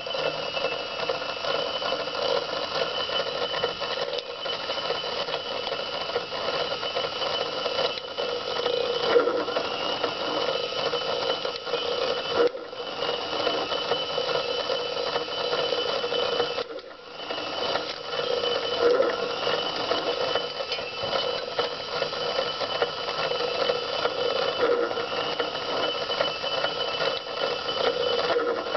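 Miniature model punch press running under its small electric motor, starting up at the very beginning: a steady motor whir with a whining gear train and the ram cycling as aluminium strip is stamped into tiny pie tins. The sound dips briefly twice near the middle.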